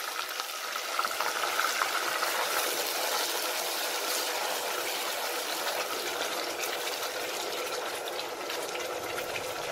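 Water just added to hot oil with fried onions and tomatoes, sizzling and bubbling steadily in a steel pot while a spoon stirs it.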